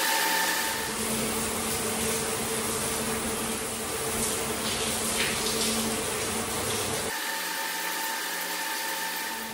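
Shower water spraying steadily, a constant hiss, with a low steady hum underneath that shifts pitch twice.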